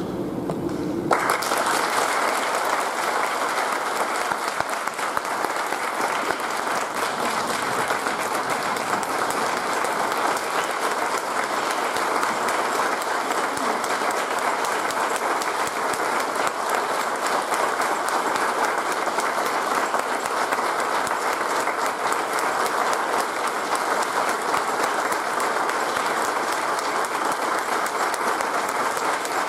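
Large audience applauding, breaking out suddenly about a second in and holding steady.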